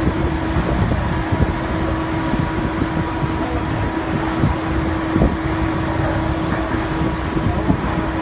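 Dust-storm wind blowing hard across the phone's microphone, a gusty, rumbling rush of noise. Under it runs a steady, even machine hum from the drilling rig's equipment.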